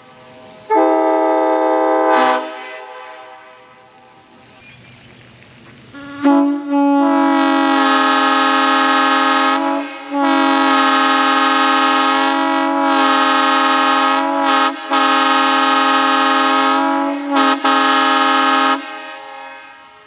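Locomotive air horn blown on compressed air, sounding a chord of several tones. It gives a short blast of about a second and a half, then a long blast of about twelve seconds broken by a few brief dips. Each blast rings on and fades after it stops.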